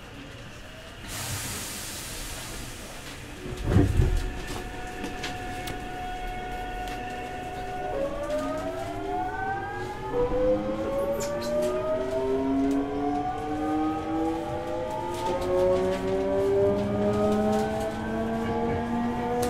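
Hankyu 8000 series train's Toshiba GTO VVVF inverter whining as the train pulls away, heard from inside the car: a steady tone, then from about eight seconds in a stack of tones rising steadily in pitch as it accelerates. Before that comes a burst of air hiss and a thump about four seconds in.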